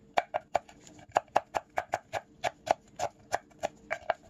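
Kitchen knife slicing a red hot pepper into rings on a wooden chopping board: steady, even knife strikes on the wood, about four a second.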